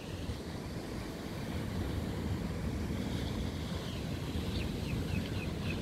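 Ocean surf washing onto the beach, with wind buffeting the microphone into a low rumble. A few short high chirps come near the end.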